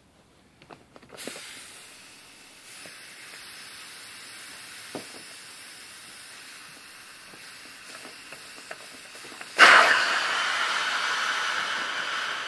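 Air hissing out of an inflatable air mattress through its opened valve as it deflates. After a few small clicks, a steady hiss starts about a second in. About ten seconds in it jumps suddenly to a much louder rush of air, which then eases off slowly.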